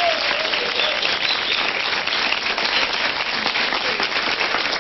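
Studio audience applauding, a steady patter of many hands clapping.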